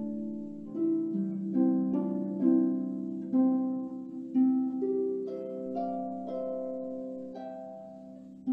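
Solo harp played slowly: a melody of single plucked notes, one or two a second, over a low note that keeps ringing. Each string rings on after it is plucked.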